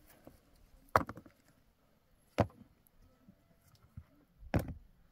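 Rocks knocking against rocks as they are set by hand into a dry-stone wall: three sharp clacks about a second and a half apart, the first and last followed by a few smaller clicks of stone settling.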